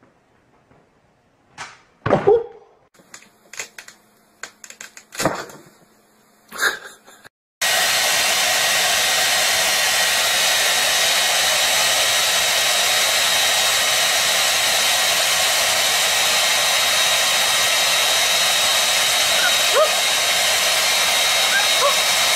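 Hand-held hair dryer blowing: a steady, loud rushing noise with a faint high whine that switches on abruptly about a third of the way in. Before it, a few short separate sounds break a near-quiet stretch.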